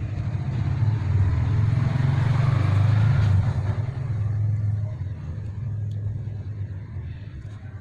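A motor vehicle engine running with a steady low hum. It grows louder about a second in and fades after about four seconds.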